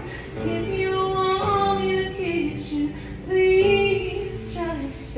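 A woman singing a song live, with long held notes that slide between pitches, accompanied by fiddle and acoustic guitar.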